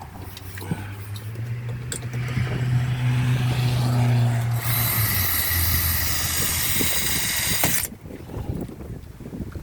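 Power drill running, its motor pitch dropping about five seconds in as the bit bites and drills with a harsh grinding noise for about three seconds, then cutting off suddenly. It is drilling a hole to fit a button snap for a boat's Bimini top.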